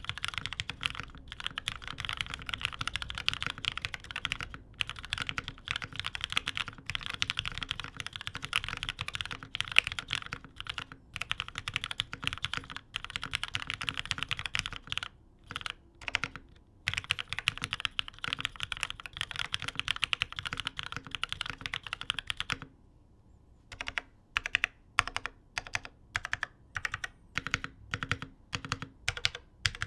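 Fast typing on an OTD 360C Corsa mechanical keyboard with lubed, filmed vintage Cherry MX Black linear switches in an aluminium top-mount plate. Dense, continuous clacking stops for about a second about three quarters of the way in, then gives way to slower, separate keystrokes about two a second, some louder than others.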